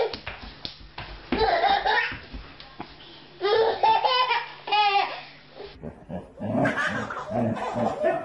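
A baby's high squeals in several short bursts, then, after a cut, a baby laughing in quick giggling bursts.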